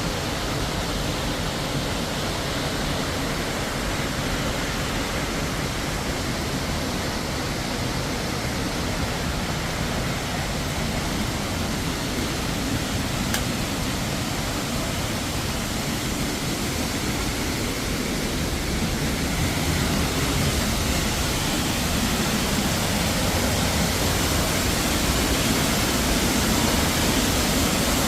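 Waterfall: a steady rush of falling water that grows a little louder about two-thirds of the way in.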